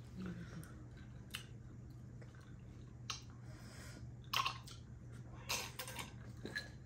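Close-miked eating sounds: chewing on pork leg and wet mouth smacks, with a few short sharp clicks of lips and fingers spread through, over a steady low hum.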